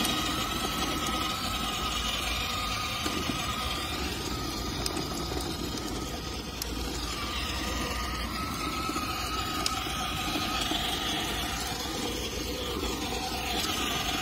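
Battery-powered children's ride-on toy car running steadily: its small electric motor whirs as its plastic wheels rumble over paving stones.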